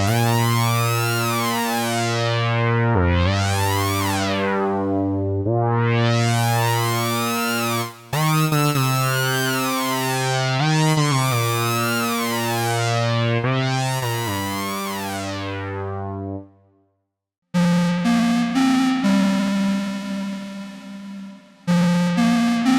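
Gforce Oddity 3 software synthesizer, an ARP Odyssey emulation, playing held chords whose tone brightens and then darkens on each chord as the filter sweeps open and closed. After a short break about 16 seconds in, a second, buzzier patch plays steady held chords.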